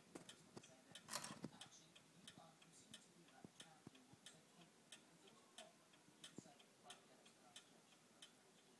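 Old wooden mantel clock, running again after repair, ticking faintly and evenly. A brief louder rustle comes about a second in.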